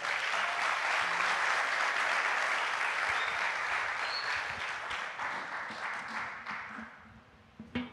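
Congregation applauding, the clapping holding steady and then fading out over the last couple of seconds, with a single short knock near the end.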